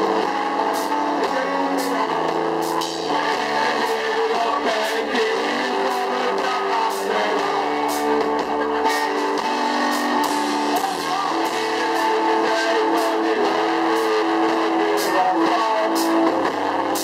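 Live band playing a guitar-led song with a steady beat.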